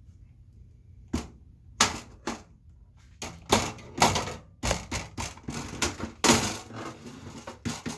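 Irregular clicks and knocks of refrigerator parts being handled and fitted back into the freezer compartment, starting about a second in and coming quickly and unevenly after about three seconds.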